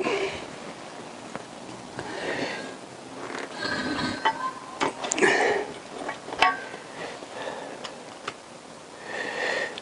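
Scattered light metallic clicks and knocks as cast aluminium motorcycle engine casings and covers are picked up, moved and set down by hand, a few sharp ticks spread through with soft handling noise between.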